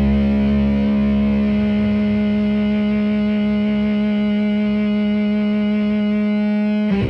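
Heavily distorted guitar played very loud through a wall of amplifier cabinets (Sunn 8x10, Sunn 6x10 and 8x12 stacks). One chord rings out and is held steady, then changes abruptly to a new chord near the end.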